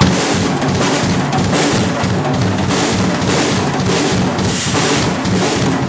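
Drum kit played loudly in a band rehearsal: a busy passage of kick and snare hits under cymbals ringing throughout.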